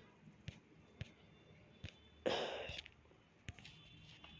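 Quiet room tone with a few faint scattered clicks and one short, breathy hiss about halfway through, the narrator's breath.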